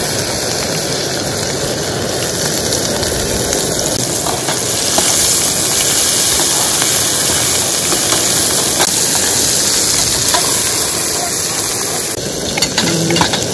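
Small river prawns, coated in chilli powder, turmeric and salt, sizzling steadily in hot oil, with a few faint clicks and pops. The sizzle grows a little louder partway through.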